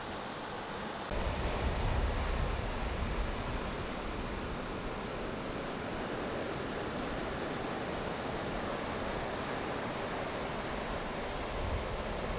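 Ocean surf breaking and washing up a beach: a steady rush of waves. About a second in it grows louder, with a deep rumble underneath.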